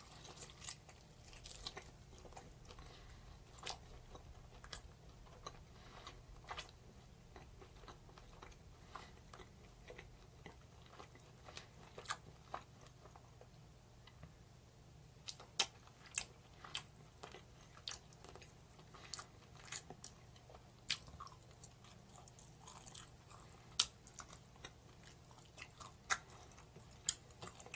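A person chewing and biting into a roast chicken thigh: faint, irregular mouth clicks scattered throughout.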